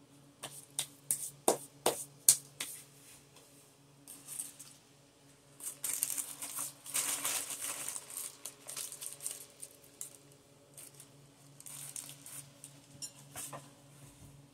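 Paper fast-food wrapper crinkling and rustling as it is handled, with a run of sharp crackles in the first few seconds and a longer rustle in the middle, over a steady low hum.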